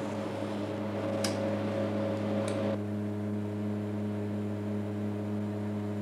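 Steady electrical hum, a low drone with even overtones, from a prototype whole-body MRI scanner's large electromagnets switched on and running. A hiss over it drops away about two and a half seconds in, with two faint clicks before that.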